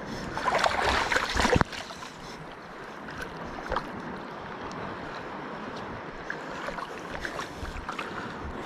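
Wind on the microphone over gently lapping sea water. A louder rush over the first second and a half cuts off suddenly, followed by a steady hiss with a few faint ticks.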